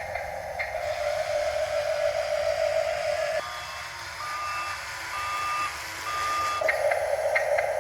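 Radio-controlled construction model's electric motor and gears whining steadily; about three seconds in the whine stops and a reversing beeper sounds several times in a regular series, then the motor whine comes back near the end.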